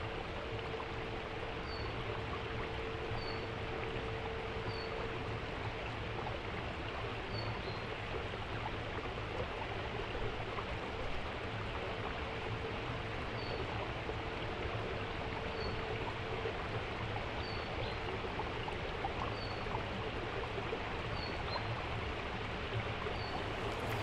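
Steady rushing noise like flowing stream water, with a faint short high chirp repeating about every second and a half and a faint held low tone that fades in and out.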